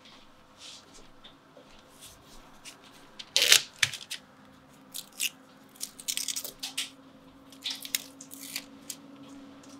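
Crinkling and rustling of paper in short, irregular bursts as small fabric pieces backed with Steam-a-Seam fusible web have their paper backing peeled off and are handled over parchment paper, with the loudest crackle about three and a half seconds in.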